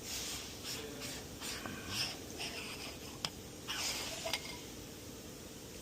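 Metal hand tools being handled: a run of short clinks and rustles with a couple of sharp clicks, dying away after about four and a half seconds.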